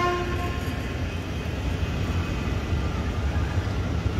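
PKP Intercity passenger coaches rolling past with a steady low rumble. A train horn blast dies away about half a second in.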